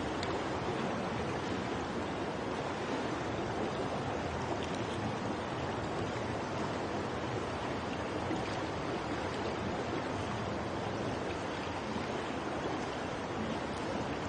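Steady wash of water noise in an indoor swimming pool hall as a lone swimmer moves through the water.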